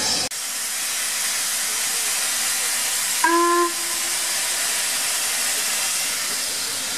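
LMS Princess Coronation Class steam locomotive 6233 standing with steam hissing steadily, and one short blast of its whistle about three seconds in, lasting about half a second.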